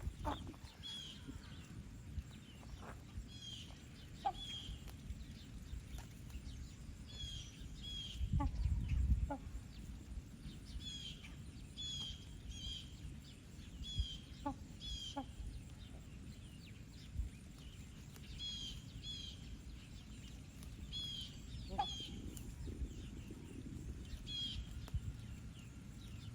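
Birds chirping: short high chirps, often in pairs, repeated every second or so. Under them runs a low rumbling noise that swells for about a second near the middle.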